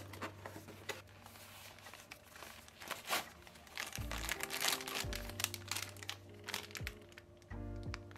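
A camera lens's plastic wrapping crinkling as it is handled and pulled from its box, thickest about three to five seconds in. Background music with deep bass notes and a beat plays underneath.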